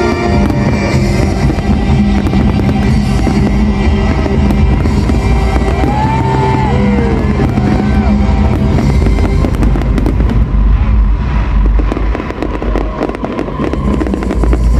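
Aerial fireworks shells bursting and crackling over loud music, with a stretch of dense crackling about ten seconds in.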